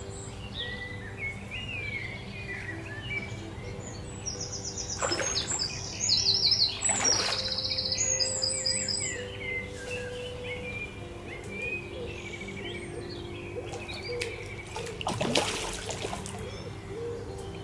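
Birds singing and trilling around a lake, with the splash of a cast feeder hitting the water twice: once about six or seven seconds in, the loudest moment, and again near the end.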